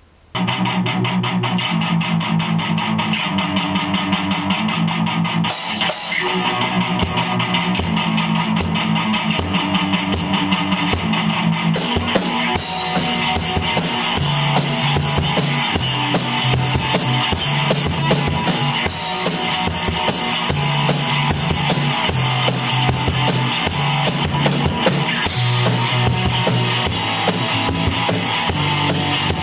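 Rock music on electric guitar and drum kit, starting about half a second in and growing fuller and heavier about twelve seconds in.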